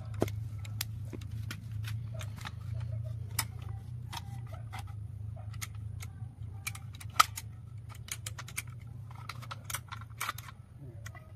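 Irregular clicks, taps and clatter of a drill stand's metal parts being handled and fitted together, a chrome steel column against the cast housing, with one sharper knock about seven seconds in. A steady low hum runs underneath.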